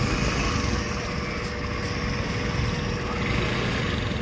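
A steady low engine rumble with a faint constant hum above it.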